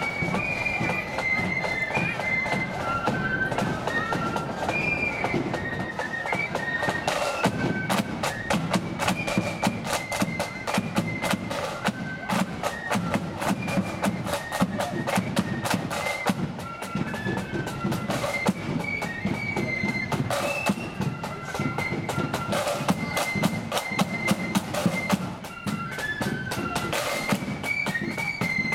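Marching flute band playing a tune: high flutes carry the melody over rapid side-drum beating and a bass drum.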